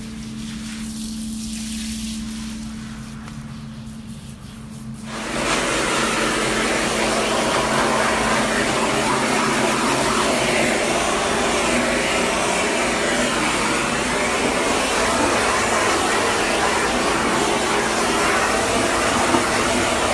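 Forced-air pet dryer at a self-serve dog-wash tub, its hose blowing on a wet German Shepherd's coat. A low steady hum for about five seconds, then the blower comes on with a loud, even rush of air that keeps going.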